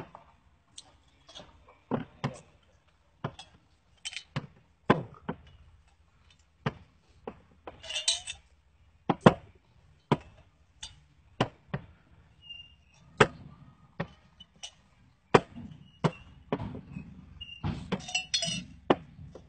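Glass bottles clinking and knocking as they are handled and set down: irregular sharp knocks about once a second, with a short rattle of bottles against each other a little past a third of the way in and another near the end.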